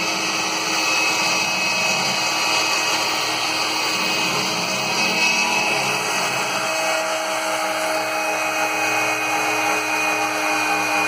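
CNC router spindle milling a 12.7 mm aluminium plate: a steady high whine over continuous cutting noise.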